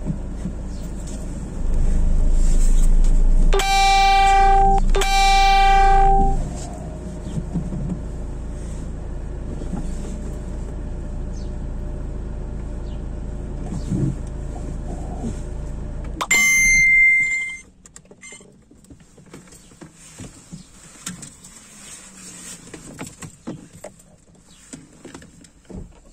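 Car engine running, heard from inside the cabin, with two long horn blasts about four and five seconds in. About sixteen seconds in there is a click and a short high beep, then the engine sound stops and only faint small clicks are left.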